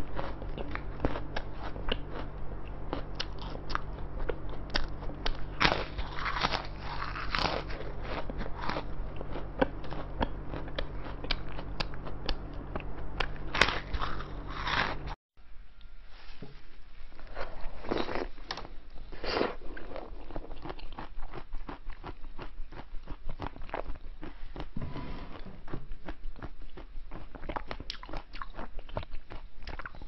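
Close-up biting, crunching and chewing. First crisp rainbow meringues are crunched, then after a sudden cut about halfway come bites into a molded block of red-tinted ice.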